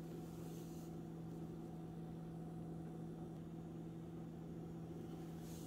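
Steady low electrical hum of a running kitchen appliance, with a faint soft hiss about half a second in and again near the end.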